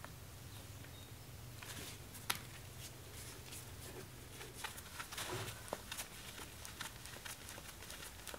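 Faint clicks and scrapes of a screwdriver working the screws on the cast-iron bearing cap of an 1890s lathe headstock, over a low steady hum.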